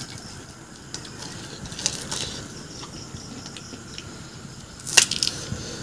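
Crisp pani puri shells crunching and crackling as they are eaten, in short scattered crackles with one sharp crack about five seconds in.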